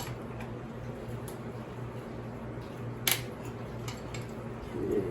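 Steady low hum with a single sharp click about three seconds in, and a few faint ticks: quiet hand-tool work on the bolts.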